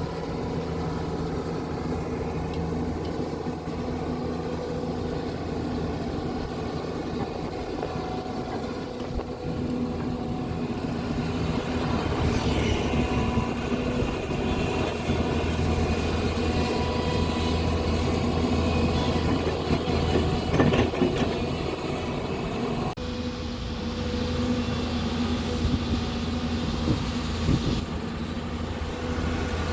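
Hyundai SMART 215L excavator's diesel engine running steadily as the machine digs. The engine works harder from about the middle, with a few sharp clanks a little later.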